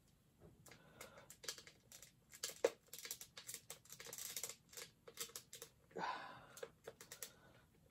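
Hard plastic Mr. Potato Head parts clicking and tapping against each other as armor and an arm are lined up and pushed into the potato body, with some soft rustling from handling.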